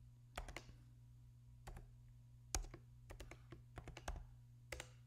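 Computer keyboard keys tapped in irregular, quick clicks, singly and in short runs, as a password is typed in, over a steady low hum.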